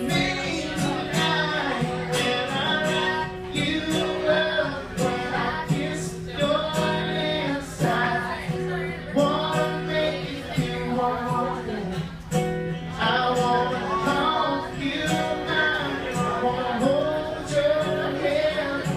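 Live acoustic guitar strummed under singing, with women's voices singing along.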